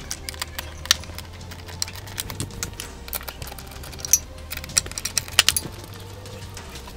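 Irregular metallic clicks and clinks of a hand tool working the 10 mm nuts that hold a car's shift assembly. The sharpest clinks come about a second in and again between four and five and a half seconds in.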